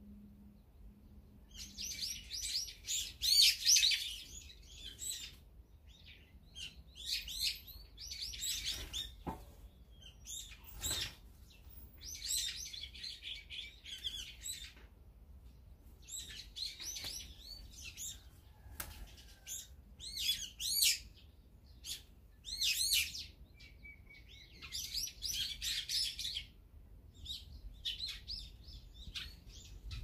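Small songbirds chirping and calling in repeated bursts of high, busy chatter with short pauses between, the loudest bursts about three seconds in and again past the middle.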